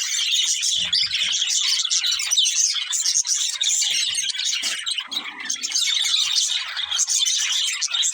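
Budgerigars chirping in a dense, unbroken run of high chirps, easing briefly about five seconds in.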